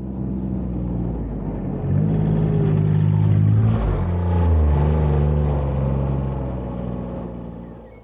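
John Deere utility vehicle engine running as it drives up to and passes close by, loudest at the pass about four seconds in. Its pitch drops as it goes by, and it fades as it drives away.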